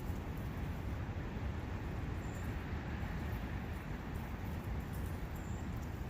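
A brook running steadily, with two faint, brief high chirps about two and five seconds in.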